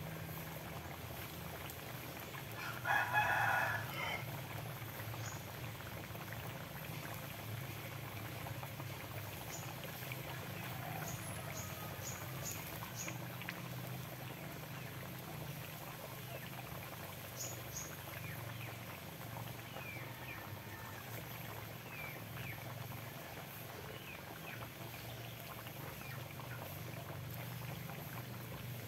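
Buffalo meat in coconut milk simmering in a wok over a wood fire, with scattered small pops and ticks. A chicken calls once, loudly, about three seconds in.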